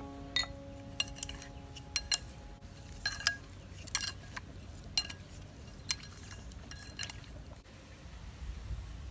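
Chopsticks clinking against a bowl at an irregular pace, roughly once a second, as chopped frog meat is stirred with pepper; the clinks stop after about seven seconds.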